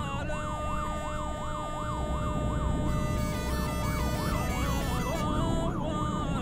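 Electronic vehicle siren in a fast yelp, its pitch sweeping up and down about three times a second, with a steady tone held alongside it. A low vehicle rumble runs underneath.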